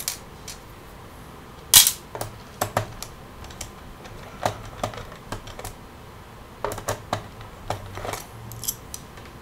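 Irregular light clicks and taps of a Phillips screwdriver and small screws against a laptop's plastic bottom case as the case screws are undone, the sharpest click about two seconds in.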